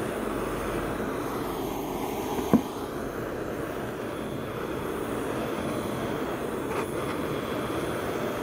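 Handheld gas torch burning with a steady rushing flame as it scorches the face of a log-slice coaster. One sharp knock stands out about two and a half seconds in.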